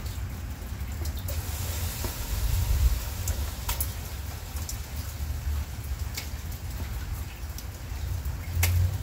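Heavy rain falling steadily under a low rumble, with scattered sharp ticks and taps.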